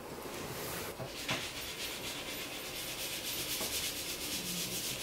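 A steady hiss, with a couple of faint knocks about a second in.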